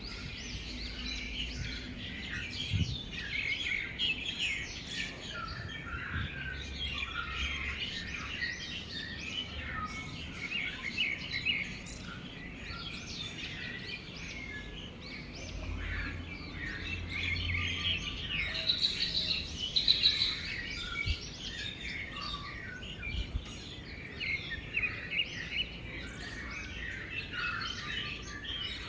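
Many small birds chirping and calling together in a dense, continuous chorus, with a few louder calls about two-thirds of the way through.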